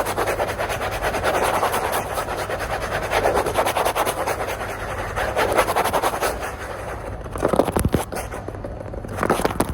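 Fingernails scratching rapidly and continuously on a surface close to the microphone, a dense rasping with a few sharper strokes near the end.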